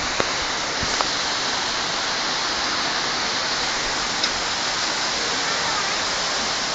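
Torrential rain pouring down, a dense, steady hiss, with a few faint knocks near the start and about four seconds in.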